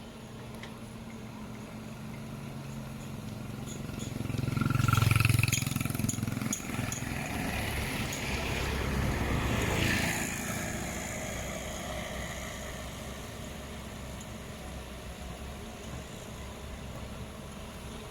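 Motor vehicles passing close by one after another. The engine and road noise swells to a peak about five seconds in, swells again about ten seconds in, then fades back to a steady background rumble.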